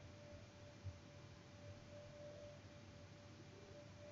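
Near silence: faint room tone with a thin steady high tone and a tiny tick about a second in.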